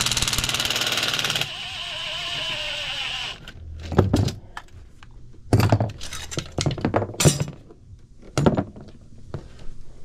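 Milwaukee 12V cordless impact driver hammering on a blower motor's mounting-bracket bolt for about a second and a half, then spinning with a wavering whine for a couple of seconds as the bolt runs out. This is followed by several clunks and knocks as the metal ECM blower motor is handled and lifted.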